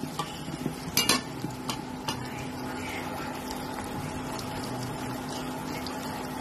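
Two eggs frying in hot oil with onion and chilli in a karai, sizzling, while a metal spoon scrapes and taps against the pan in the first two seconds. After that a steady sizzle continues with a low hum underneath.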